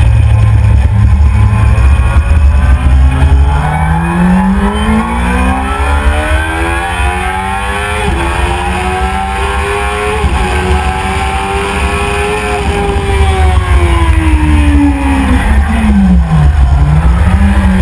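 Yamaha R6 inline-four sportbike engine heard onboard at speed, its revs climbing steadily for several seconds, then falling back as the bike slows, with a quick dip and pick-up near the end. Heavy wind rush on the camera runs underneath.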